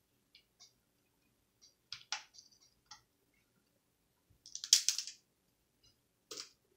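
Small clicks and ticks of a small Phillips screwdriver and tiny screws being worked out of a laptop LCD panel's mounting tabs. The loudest part is a short scratchy rasp a bit past halfway, with sharper clicks about two seconds in and near the end.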